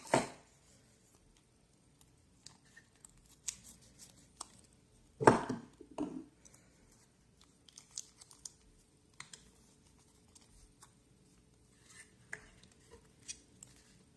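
Small metal clicks, taps and scrapes from hand tools working the tiny parts of a Dunhill Rollagas lighter during disassembly and repair. They come at irregular moments, with a sharp click at the start and the loudest knocks about five to six seconds in.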